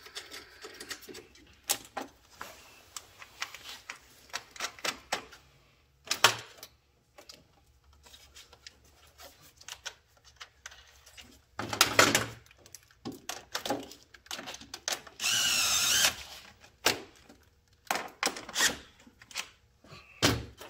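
Hands and tools working on the plastic parts around the battery and fuse box: scattered clicks and knocks, a louder cluster of knocks about halfway through, and a steady noise lasting about a second a few seconds later.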